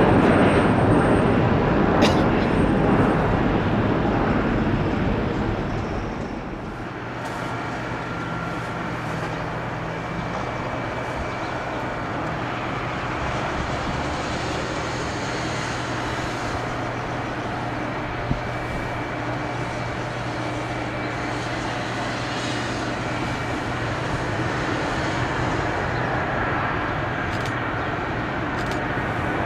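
Airliner jet engines at take-off power, fading as the aircraft climbs away. Then a Boeing 737-800 comes in to land: a steady jet engine hum with a faint high whine, growing a little louder near the end.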